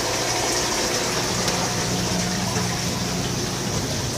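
Steady rush of running water with a low steady hum, from aquarium filtration: pumps and water flow.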